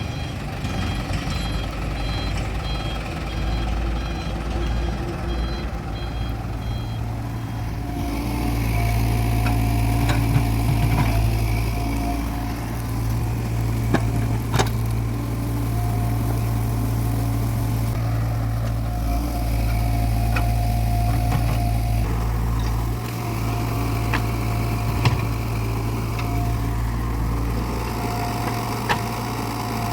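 A heavy truck's diesel engine runs steadily. For the first several seconds a reversing alarm beeps rapidly over it, and a few sharp knocks come later.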